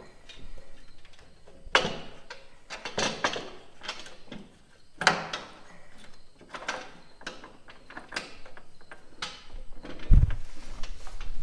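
Metal clanks and rattles of tools and truck parts being handled, a string of sharp knocks every second or two, with a deep thud about ten seconds in.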